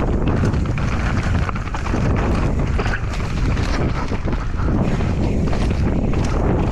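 Mountain bike descending a dirt trail at speed: wind rushing over the rider's camera microphone, a steady rumble of tyres on the ground, and frequent small clicks and knocks from the bike rattling over rough terrain.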